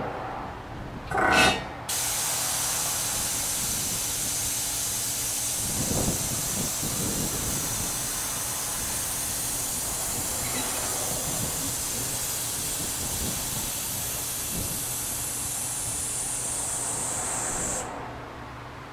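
Air-ride suspension on a Boss Hoss trike being let down: a short loud burst as the air is released, then a long steady hiss of air venting from the bags that sinks slightly in pitch as the pressure falls and cuts off sharply near the end.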